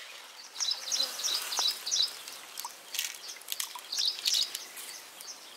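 A small bird chirping in quick runs of short, high calls, twice over, with a few faint clicks in between.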